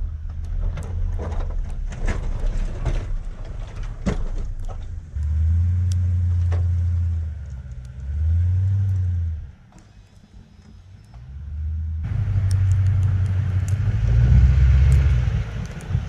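Pickup truck engine running as it plows snow with a BOSS HTX snowplow, mixed with low wind rumble on the microphone. About three-quarters in the sound jumps closer: the engine is louder, with a hiss of snow being pushed by the blade.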